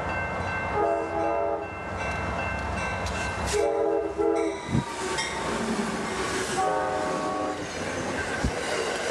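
Amtrak diesel-hauled passenger train passing close at speed, its horn sounding several short blasts as the locomotive goes by, with the rumble and clack of the cars' wheels over the rails.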